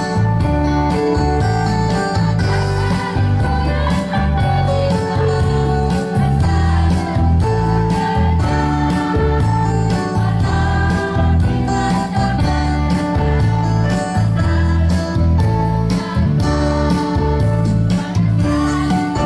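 Women's choir singing over amplified band accompaniment with guitar, a strong bass and a steady beat.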